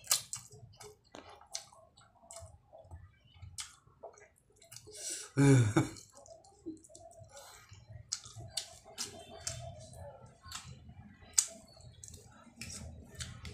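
A person eating mixed fried and soup instant noodles: slurping and chewing, with many small clicks of a metal fork and spoon against a glass bowl. A short loud noise from his mouth about five and a half seconds in is the loudest thing.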